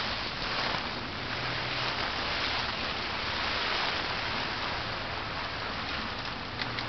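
Heavy rain beating steadily on a tent, heard from inside the tent, with a few faint drop ticks near the end.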